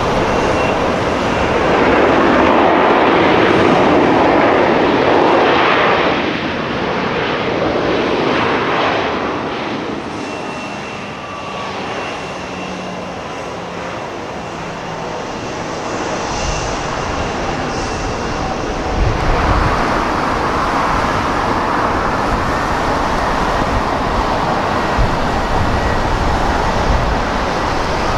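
Boeing 737 jet engines running as the airliner rolls along the runway, a continuous rush with a thin whine over it that swells early on and then fades. A deep rumble joins in partway through, and the sound shifts to a second 737 on the runway near the end.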